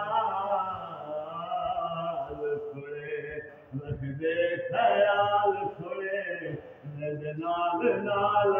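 A man singing a naat unaccompanied, in long held phrases with melodic turns, breaking briefly between phrases.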